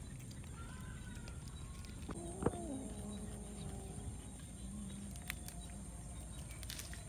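A group of cats feeding outdoors over a steady low rumble, with a sharp click and a short, faint meow about two and a half seconds in.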